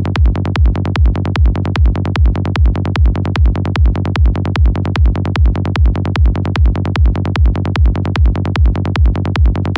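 Electronic dance music in a techno/trance style: a loud kick drum on every beat, a little more than two beats a second, over a steady held bass.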